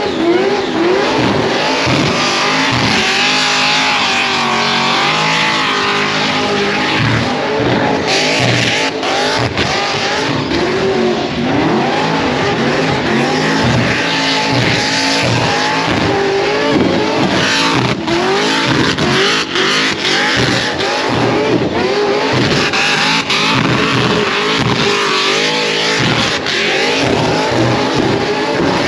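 A car doing a burnout: its engine is held at high revs with the pitch rising and falling continuously, over a steady hiss and squeal of spinning tyres that grows brighter about eight seconds in.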